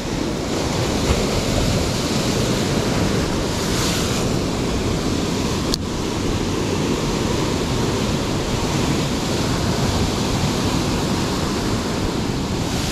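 Ocean surf breaking against the rock shelf below, a steady wash of noise, with wind buffeting the microphone. A single sharp click comes about six seconds in.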